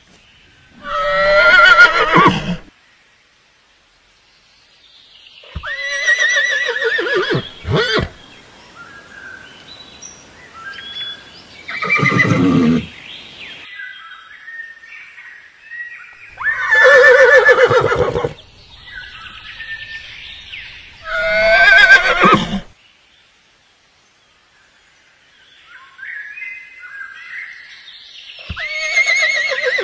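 Horses neighing: about five loud whinnies a few seconds apart, with another starting near the end. Faint chirps can be heard between the calls.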